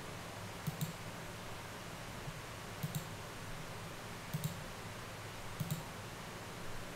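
Computer mouse button clicking in four quick pairs, over a steady low hum and hiss.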